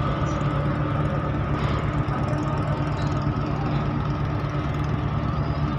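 Boat engine running steadily under way, heard from on board as a constant low hum.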